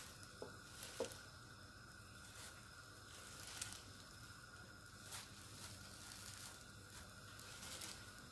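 Handfuls of chopped collard greens dropped into a pan of broth: faint rustling of the leaves, with a few soft taps.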